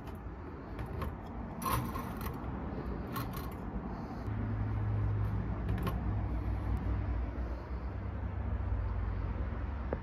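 Light metal clicks and creaks from the jointed metal legs of a junkbot sculpture built from typewriter parts as it is handled and turned, with a few sharp clicks. A low steady hum grows stronger about four seconds in.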